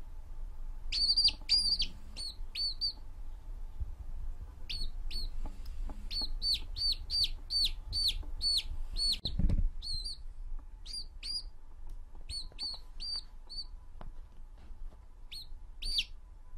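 Baby chick peeping: short high peeps repeated in quick runs, with short pauses between runs. A single dull thump about halfway through.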